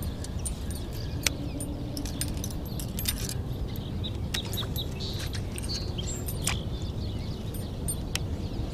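Irregular light metallic clicks and ticks from a baitcasting reel and rod being worked during a lure retrieve, over a steady low rumble of wind and water.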